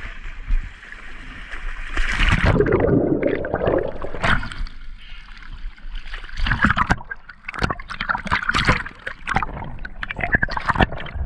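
Water splashing and gurgling close around the microphone, with irregular knocks and sloshes. It is loudest and densest about two seconds in.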